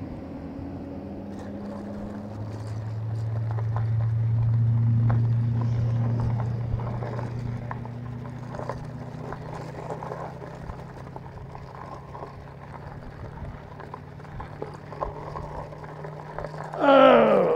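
A motor vehicle going past with a steady low engine hum that swells over a few seconds and then slowly fades. Near the end comes one loud, short call that falls steeply in pitch.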